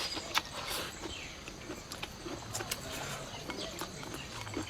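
A person eating: chewing with scattered sharp clicks, against a rural outdoor background with birds.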